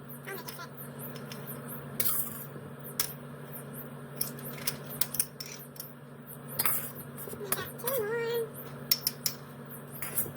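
Scattered short clicks and clinks of kitchen utensils and glass canning jars being handled, over a steady low hum, with one brief wavering pitched sound about eight seconds in.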